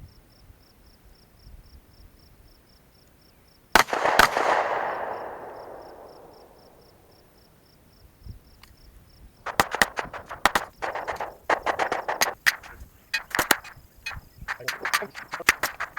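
Gunfire outdoors: a loud blast about four seconds in, with a long rolling echo that fades over several seconds, then a quick string of shots in the last six seconds. A faint, evenly repeating insect chirp sits under the quiet first stretch.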